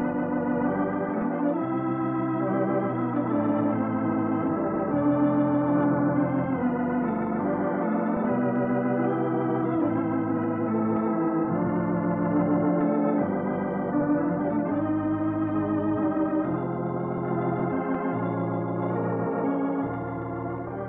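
Organ music playing slow sustained chords with vibrato, the chords changing every second or two, the programme's closing music; it starts to fade out near the end.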